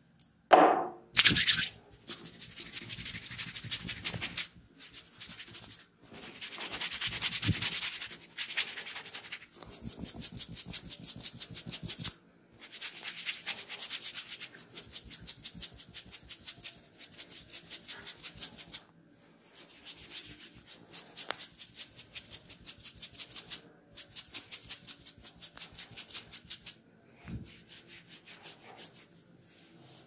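Fingers rubbing and scrunching fast through wet hair over the scalp during a head massage: a rapid, rhythmic scratchy rustling that comes in runs of a few seconds with short breaks. Two short, loud bursts come near the start.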